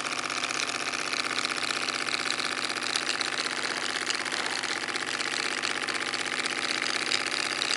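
Scale-model Stirling-cycle traction engine running steadily at speed: a fast, even mechanical clatter from its piston and crank.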